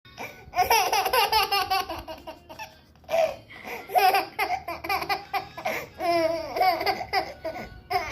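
A baby laughing in several bursts of quick, high-pitched laughs with short pauses between them.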